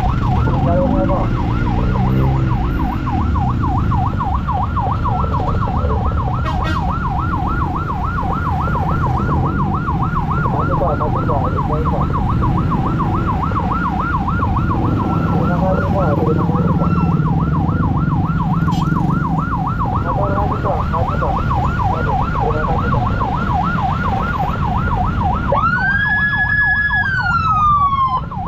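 Emergency siren on a fast warble, sweeping up and down in pitch several times a second, over a steady low rumble of engines and traffic. Near the end it switches to one long tone that rises, holds and then slides down.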